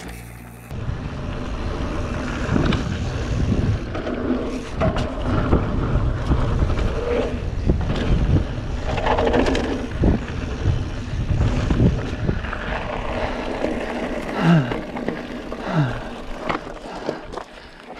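Ride-along audio of a Titan Cypher full-suspension mountain bike running fast over a dirt and gravel trail. Wind rumbles on the microphone while the tyres crunch and the bike rattles and knocks over bumps. It dies down near the end as the bike slows.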